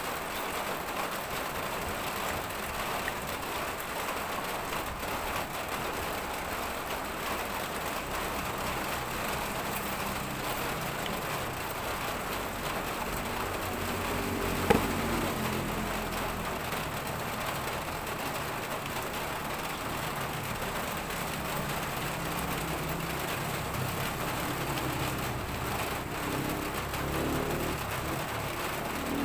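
Steady outdoor background hiss. From about a third of the way in, a low engine hum runs beneath it, and about halfway through a single sharp knock stands out as the loudest sound.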